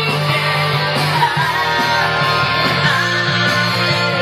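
Rock music with guitar, playing loud and steady with a regular beat.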